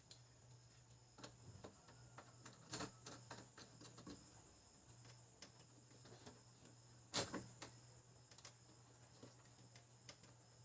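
Near silence with scattered faint clicks and taps, the loudest about three and seven seconds in, as plastic printer parts are handled and fitted back into a laser printer, over a faint steady hum.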